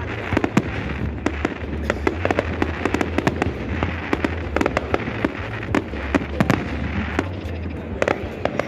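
Fireworks display: aerial shells bursting in a rapid, uneven run of bangs and crackles, many overlapping.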